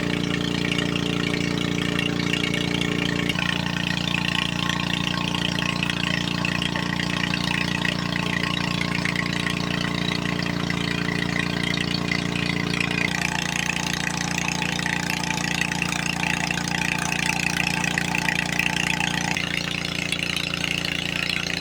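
Small petrol engine of an alkon water pump running steadily at constant speed, as used to power a gold-mining jet dredge. Its tone shifts abruptly a few times.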